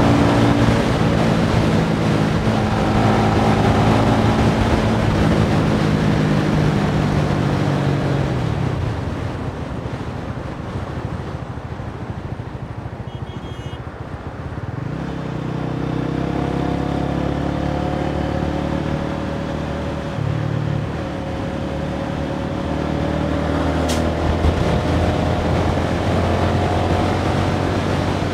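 Small motorbike engine running on the move, with wind rushing over the microphone. The engine pitch falls and the sound drops about nine seconds in, then the engine picks up again about fifteen seconds in and holds steady.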